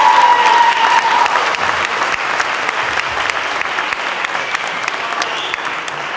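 Audience applauding, many hands clapping, as the song's final held note fades out about a second in.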